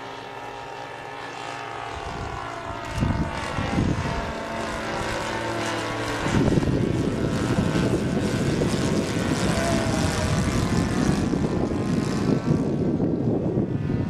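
The 26cc two-stroke petrol engine of a Seagull Edge 540 model aerobatic plane running in flight overhead, with its propeller drone growing louder as it comes nearer. A heavy low rumble joins it from about six seconds in.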